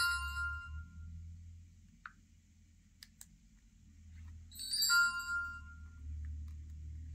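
Galaxy S23 Ultra's 'Heart' S Pen sound effect playing twice: a short chime of several ringing tones at the start, and again about five seconds in as the S Pen is pulled from its slot. A few faint clicks come in between.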